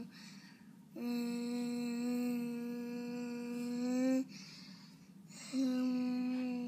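A child humming one steady, held note, with two short breaks for breath about a second long each, the note rising slightly just before the second break.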